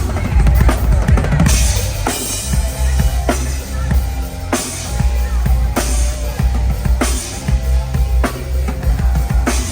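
A live band playing at a sound check through a PA: a drum kit with a heavy, booming bass underneath and a snare striking a steady backbeat about every second and a bit, with keys or other instruments holding notes over it.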